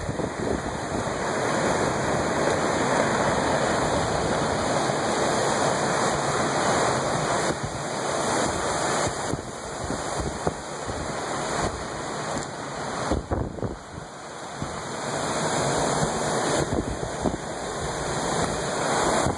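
Hurricane wind and storm-surge water together as a loud, steady rushing, swelling and easing with the gusts and dipping briefly about two-thirds of the way through. Part of it is wind buffeting the microphone.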